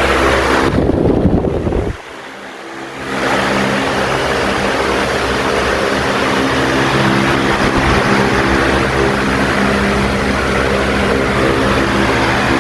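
Tron 60 cm oscillating wall fan running: a steady rush of air over a steady motor hum, with the airflow buffeting the microphone. The sound drops away briefly about two seconds in, then comes back.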